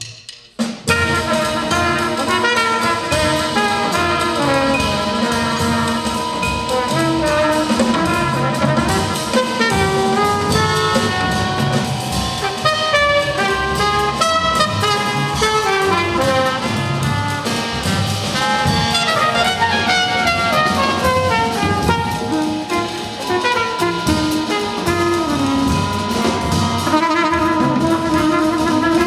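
Large jazz ensemble playing live, with brass and saxophones over a drum kit in a dense, busy passage. The music comes in suddenly about a second in after a brief quiet.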